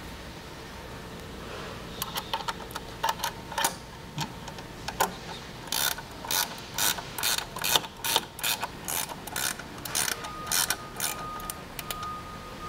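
Wrench loosening bolts inside a steel light-tower frame: a run of sharp metallic clicks, a few a second, starting about two seconds in.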